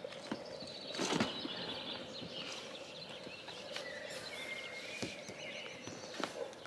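Birds chirping and singing in the background, with a brief rustle and scrape about a second in and a few small clicks, from an inflatable kayak's vinyl hull being handled as a part is fastened on.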